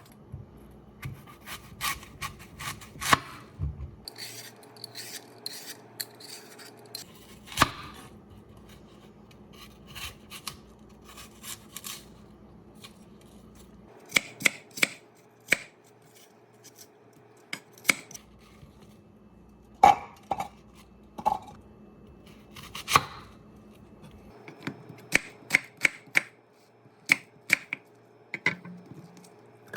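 Knife chopping on a cutting board: irregular runs of sharp knocks with short pauses between them.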